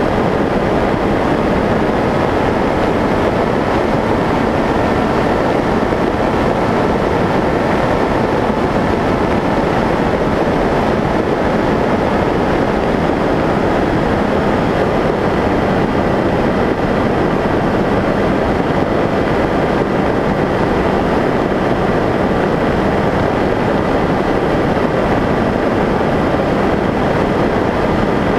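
Skyshadow S800 FPV flying wing in flight, heard from its onboard camera: a steady rush of wind over the plane with the faint, steady whine of its electric motor and propeller.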